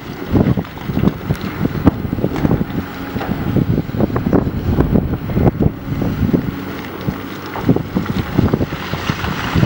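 Large CAT 385C hydraulic excavator's diesel engine running under load as it digs into broken rock, with irregular knocks, all heavily buffeted by wind on the microphone.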